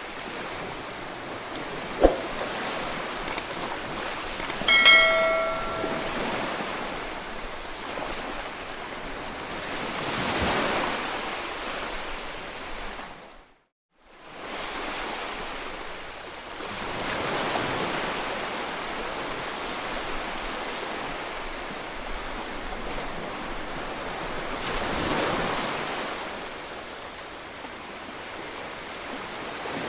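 Small waves breaking and washing up on a sandy shore, a steady surf hiss that swells every several seconds. A sharp click comes about two seconds in and a brief bell-like ring about five seconds in, and the sound cuts out for a moment about halfway through.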